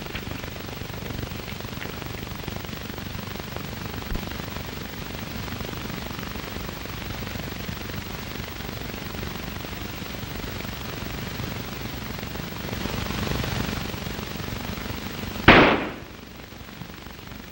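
Steady hiss of an old film soundtrack, then a single loud gunshot about fifteen seconds in.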